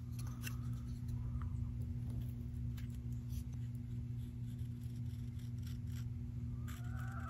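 Carving knife taking light slicing cuts on the outside of a dried wooden spoon's bowl: faint, short scraping strokes, a few more near the end, over a steady low hum.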